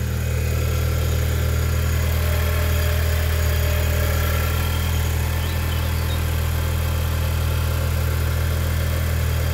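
Audi 2.0 TFSI turbocharged four-cylinder petrol engine idling steadily just after a cold start, freshly rebuilt with a new camshaft and timing chain. It is running at a fast idle, which the owner puts down to the engine being cold.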